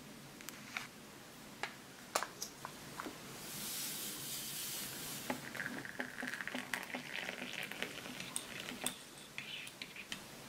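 A foil stick pack of instant drink crinkling and clicking in the hands, with a brief high hiss about three seconds in. Then water is poured into a ceramic cup for several seconds, and near the end a spoon clinks lightly against the cup as it stirs.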